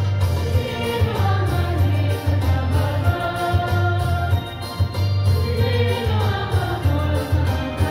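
Choir singing together in rehearsal, holding long notes that move in pitch every second or so, over a loud low rumble.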